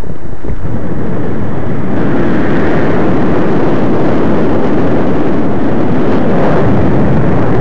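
Steady, loud rush of wind and road noise on the microphone of a camera moving along a road, growing stronger about two seconds in.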